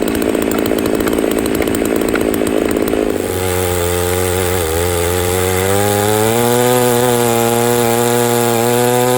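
Stihl MS660 90cc two-stroke chainsaw on a 64-inch milling bar, working hard as it rips through a log at full throttle. About three seconds in, the rough loaded note clears into a smoother, steadier one that rises in pitch and holds high as the chain runs free at the end of the cut.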